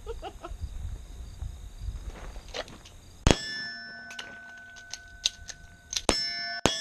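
Pistol shots from 9mm Glock-pattern handguns: one loud shot about three seconds in, a few smaller pops, then two more loud shots near the end. Each loud shot is followed by a sustained metallic ringing, like steel targets being hit.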